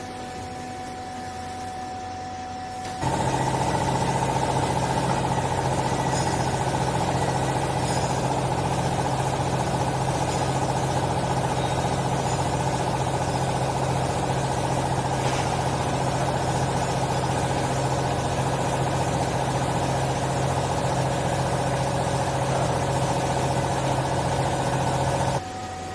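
Small hydraulic used-clothes baler running: its motor-driven hydraulic pump hums quietly, then about three seconds in goes suddenly louder into a steady, heavy hum under load, and drops back to the quieter hum near the end.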